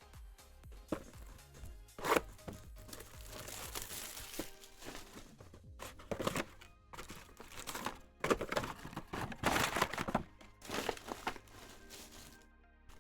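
Trading-card pack wrappers crinkling and being torn open, with cards handled, in a series of short irregular rustling bursts over background music.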